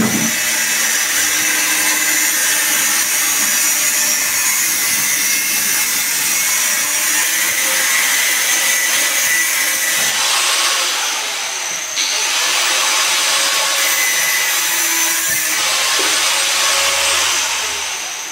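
A handheld power tool running continuously on the frame, a steady high whine over a harsh hiss. The hiss swells several times in the second half, and the sound fades away near the end.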